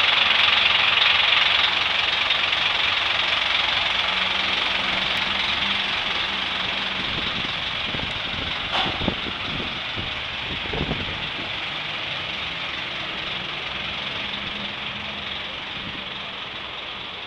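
Scania K310 bus's rear-mounted diesel engine idling, a steady whirring hum that grows gradually fainter, with a couple of brief knocks about halfway through.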